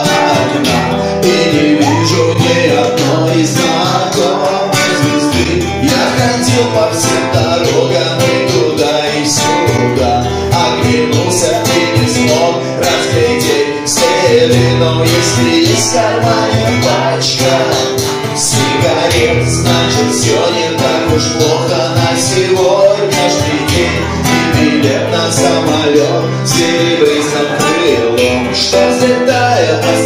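A song with guitar and a bass line, and voices singing along.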